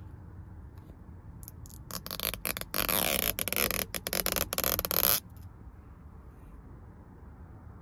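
Clear protective film being peeled off a backlit M badge on a leather seat headrest: a loud, crackly peeling sound with many small clicks, starting about two seconds in and lasting about three seconds, over a low steady background.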